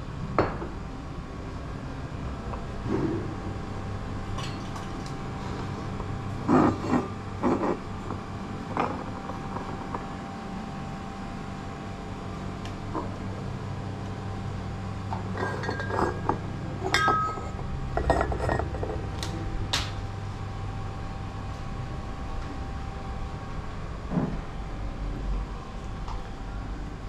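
Scattered clinks and knocks, busiest in two clusters, over a steady low hum.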